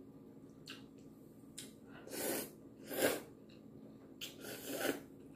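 Noodles being slurped from a bowl of soup: three short slurps about two, three and four and a half seconds in, with a few light clicks between them.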